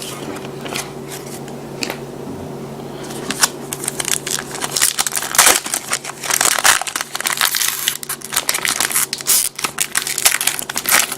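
Trading-card pack wrapper being crinkled and torn open by hand, with a dense run of sharp crackles starting about three seconds in.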